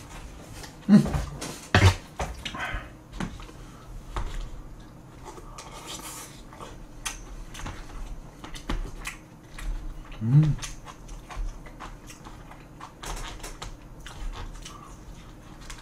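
Chopsticks clicking and scraping against plastic takeout trays during eating, with light chewing. A few louder knocks in the first two seconds, and a brief rising voiced sound about ten seconds in.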